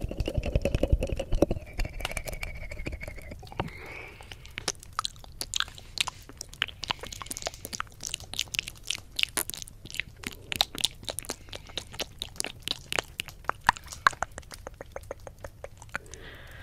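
Close-up mouth sounds pressed against the silicone ear of a 3Dio binaural microphone (ASMR ear eating). A low, rapid tongue flutter in the first few seconds gives way to many irregular wet clicks and smacks of lips and tongue.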